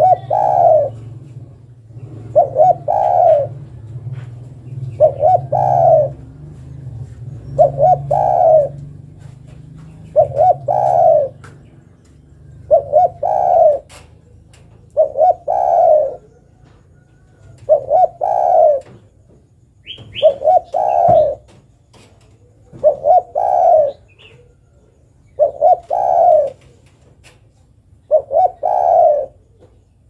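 Spotted dove cooing: a short two- or three-note phrase, a quick note then a longer one, repeated steadily about once every two and a half seconds, about a dozen times. The uploader presents it as a female calling for a male.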